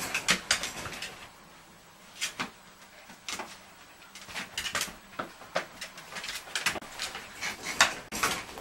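Young schnauzer puppies, 17 days old, squeaking and whimpering in short, high-pitched, irregular cries as they stir and crawl. The loudest cry comes near the end.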